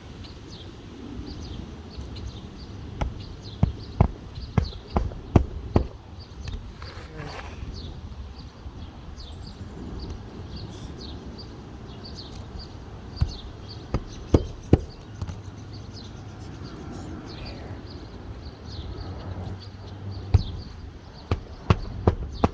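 Hammer striking roofing nails under a lifted asphalt shingle to set them: sharp knocks in bursts, about six in quick succession a few seconds in, four more in the middle, and several more near the end.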